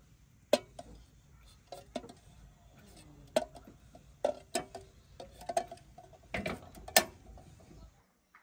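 Irregular sharp clicks and knocks on the thin metal of an aluminium kettle as a hand works something small inside its open mouth, about a dozen strikes, the loudest near the end.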